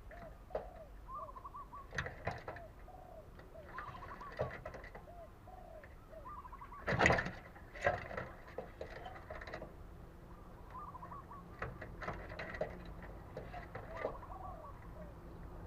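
Spotted doves cooing, short repeated coo notes over and over. Scattered knocks or clicks sound among the calls, the loudest about seven seconds in.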